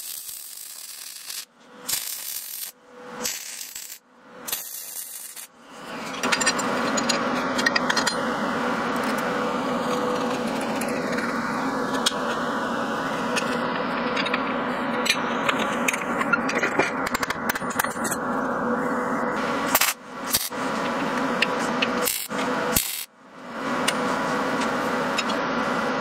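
Arc welding in short crackling bursts with gaps between them for about the first six seconds. After that comes a steady hum with scattered light metallic clinks as steel parts are handled and fitted.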